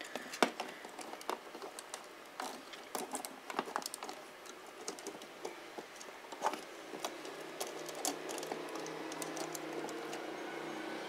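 Plastic model-kit parts of a Gundam Seven Sword figure clicking and tapping against each other in the hands as parts are separated and fitted. About two-thirds of the way through, a faint steady hum comes in underneath.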